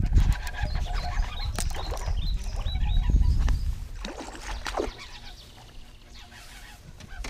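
Wind buffeting the microphone as a heavy low rumble that drops away after about three and a half seconds, with birds calling in short repeated chirps over it.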